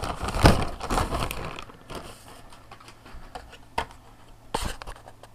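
Paper and packaging rustling and crinkling as a delivery parcel is handled and opened, busiest in the first two seconds, then a few light knocks.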